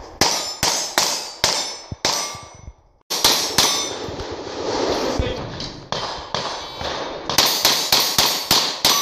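Handgun shots fired in rapid strings at steel plate targets, each string a quick run of sharp cracks with the metallic clang of hit steel ringing after them. About five shots come in the first two seconds; after a short dropout, a faster run of about seven closes the window.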